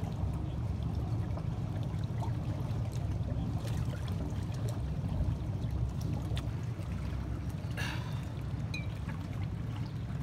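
Lake water trickling and lapping at the shoreline under a steady low wind rumble on the microphone, with a few brief clicks and knocks about four and eight seconds in.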